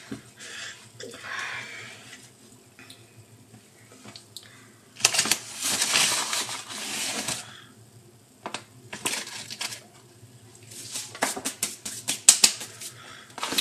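Kitchen handling noises while making homemade flour clay: scattered rustling, a rushing noise for about two seconds midway, then a quick run of clicks and light clatters near the end.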